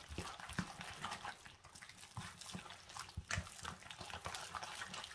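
A white plastic spoon stirring a wet mashed sweet potato mixture of melted butter, sugar, eggs and vanilla in a stainless steel bowl: faint, irregular wet stirring and scraping strokes, several a second.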